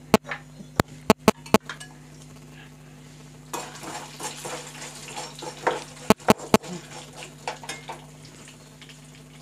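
Metal spatula stirring dals and peanuts frying in oil in a stainless steel kadai, with sharp clinks of metal on the pan. Several clinks come in the first second and a half, then scraping and sizzling from about three and a half seconds, then three more clinks near six seconds. A steady low hum runs underneath.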